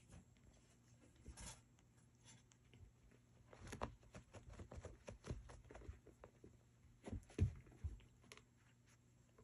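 Faint scuffling, rustling and soft knocks of a cat wrestling and kicking at a plush toy on carpet, in irregular bursts that grow busier in the second half, with the loudest knock about three-quarters of the way through.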